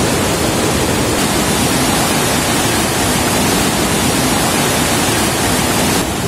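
Fast mountain stream rushing over rocks and boulders in white water: a loud, steady rush of water.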